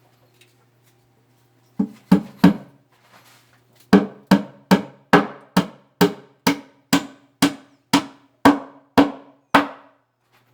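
Hammering on wood: three quick blows, then a steady run of about fourteen blows at a little over two a second, each with a hollow wooden knock.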